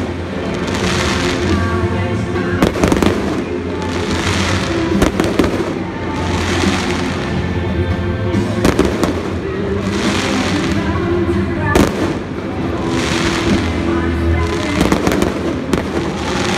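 Aerial fireworks bursting: sharp bangs every few seconds with crackling in between, over music playing underneath.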